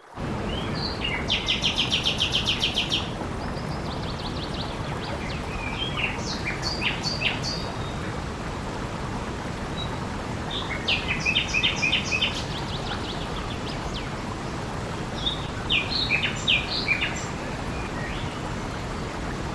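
A steady rush of running water with songbirds singing over it: a fast trill near the start, then three more bouts of chirping spaced a few seconds apart.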